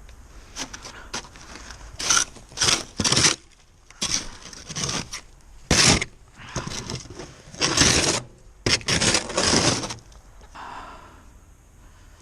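Irregular scraping and rubbing noises: about ten short strokes over some eight seconds.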